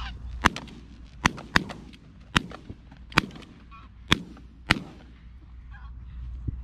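Seven shotgun shots fired by several hunters in quick, irregular succession over about four seconds.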